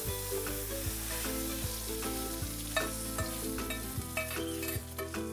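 Burst cherry tomatoes and hot drippings sizzling as they are poured from a grill pan and scraped out with a spatula, with a few short clicks and scrapes of the spatula against the pan.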